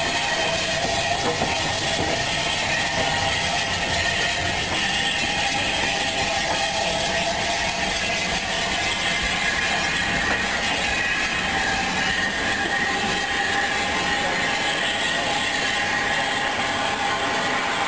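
Unrebuilt Bulleid air-smoothed Pacific steam locomotive running slowly past and away along the track: a steady sound of wheels and running gear on the rails, with a faint thin squeal held over it.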